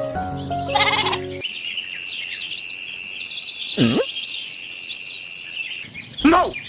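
Edited soundtrack of sound effects. A short music phrase cuts off about a second and a half in, just after a bleat-like call. Then comes a steady high whistling tone with bird-like chirps over it, a swooping effect in the middle and two more swoops near the end.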